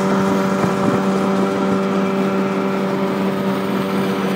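Motorboat engine running steadily under way, a constant even-pitched hum, with the rush of water and wind past the moving boat.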